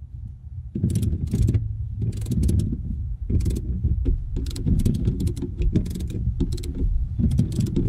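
Socket ratchet clicking in repeated runs as the seat's mounting bolts are run down into the floor.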